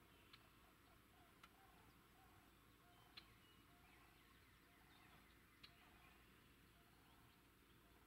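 Near silence: faint outdoor ambience broken by a few soft, short ticks.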